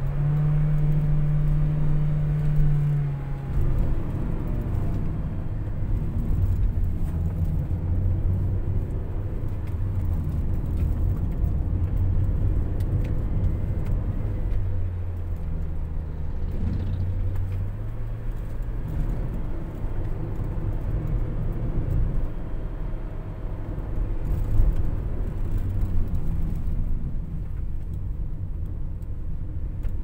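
Toyota Noah 70-series minivan's engine and road rumble heard from inside the cabin while descending a mountain road. The engine holds a steady hum under engine braking from the 7-speed semi-automatic, and its note drops a step about three seconds in.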